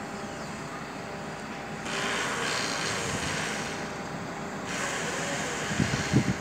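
Munck crane truck running during a lift. A louder hissing noise starts suddenly about two seconds in and cuts off about three seconds later, and a few low thumps come near the end.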